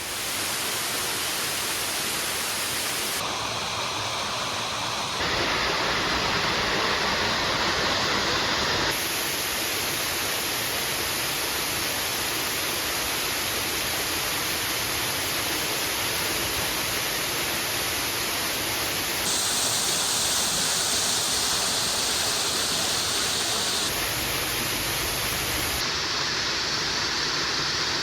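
Waterfall rushing steadily into a pool: a constant, even hiss of falling water. Its tone shifts abruptly several times, brighter or duller, as the listening position changes.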